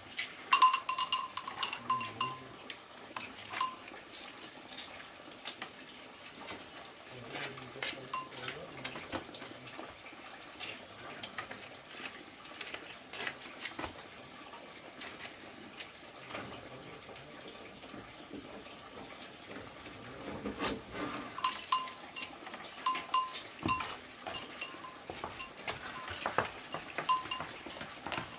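Small metal bell ringing in irregular jingles, one bout near the start and another in the last third, with scattered single strikes in between.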